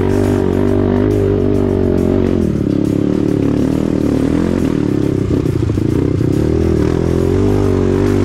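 Off-road motorcycle engine running, its pitch rising and falling as the throttle is worked, with music playing over it.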